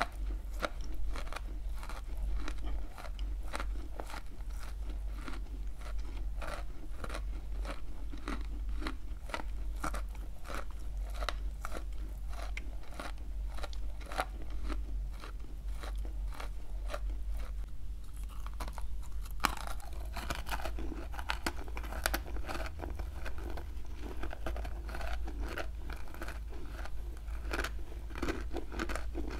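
Close-miked chewing of a dry chunk of clay spread with cream paste: a dense run of crisp crunches, one after another. In the last third the crunches turn hazier and less sharp.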